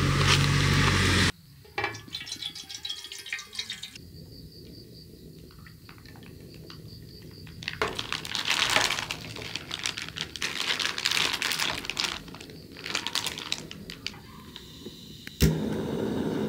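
Plastic vacuum packaging crinkling and liquid splashing as meat and broth are squeezed out of the pouch into a pan. About a second before the end, a sharp click is followed by the steady hiss of a gas camping stove burner.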